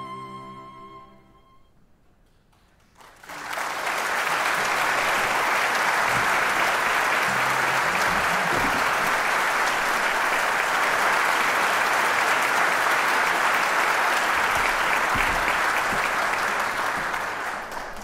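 A string quartet's final chord dies away into a brief hush, then the audience breaks into steady applause about three seconds in, which fades near the end.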